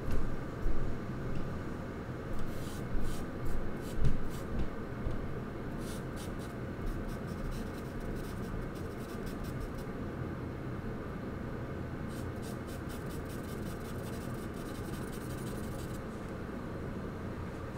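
Charcoal stick scratching across paper in runs of quick strokes: about two to four seconds in, six to nine seconds in, and twelve to sixteen seconds in. A few soft low bumps come in the first four seconds, over a steady low hum.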